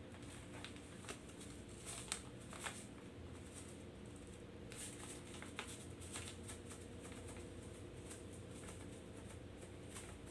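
Faint crackle and rustle of a plastic bag of salt being handled and poured over shredded bamboo shoots, which are mixed by hand in a plastic bowl, with a few sharper crackles about two seconds in. A low steady hum lies underneath.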